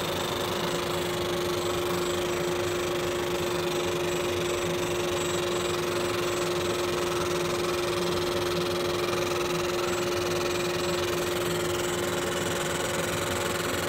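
60-watt MOPA fiber laser engraving stainless steel: a steady buzzing hum with one constant tone over an even hiss, with no break or change in level.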